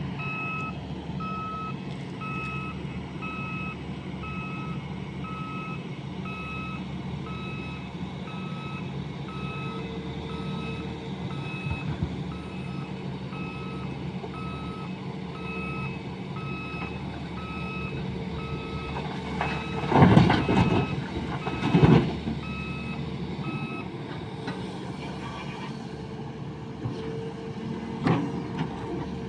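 A heavy machine's reversing alarm beeps steadily, about two beeps a second, over a running diesel engine, then stops about 24 seconds in. Two loud, short noisy bursts come near the end, about two seconds apart.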